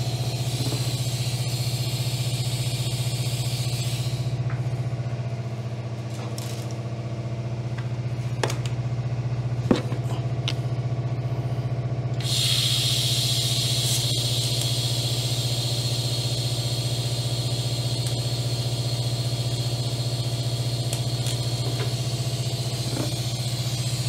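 TIG welding rig running: a steady low hum with a high hiss over it. The hiss cuts out about four seconds in and comes back abruptly about twelve seconds in, with a couple of sharp clicks in the quieter stretch between.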